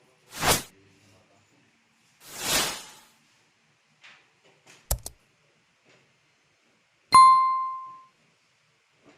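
Edited-in sound effects over silence: two short whooshes, then a sharp double click, then a loud bell-like ding that rings out for about a second.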